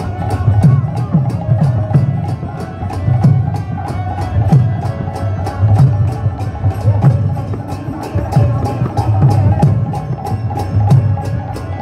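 Kirtan music: brass karatals (hand cymbals) clashing steadily about four times a second over mridanga drum beats and the sustained drone of a harmonium.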